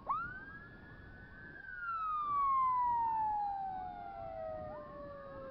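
Two vehicle sirens sounding together. One rises sharply, holds high, then falls slowly over about five seconds before shooting up again near the end. The other gives quick rising whoops, about three a second, beneath it.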